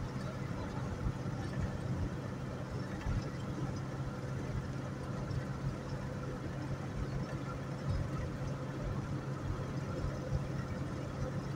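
Car being driven at highway speed, heard inside the cabin: a steady low engine and drivetrain hum under constant tyre and road noise.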